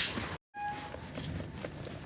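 Footsteps, broken off just under half a second in by a moment of dead silence. A short beep follows, then softer steps.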